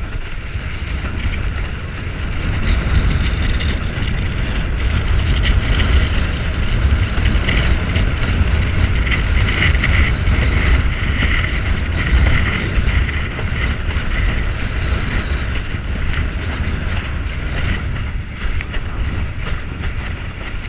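Heavy wind rumble on the microphone of a board-mounted camera, with the hiss of water rushing past a windsurf board sailing at speed. The hiss grows louder in the middle.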